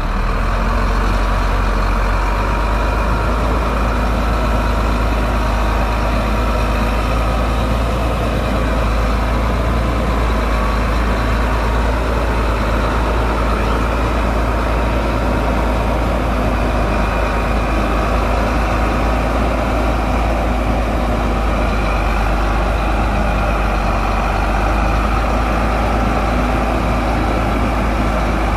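Heavy construction vehicle's diesel engine running steadily. The deep, even engine note holds without a change in speed and with no sharp knocks.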